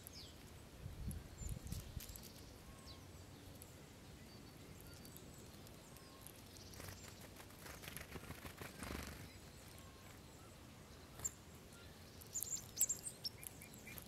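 Tits at a winter feeder, great tit and blue tit, giving short high call notes, with soft wing flutters as they fly in and out. A quick cluster of sharp high notes comes near the end.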